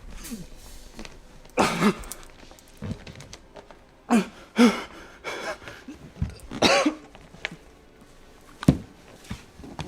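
A person making short wordless throat sounds, like coughing and throat clearing, in about four loud bouts, with a few sharp clicks between them.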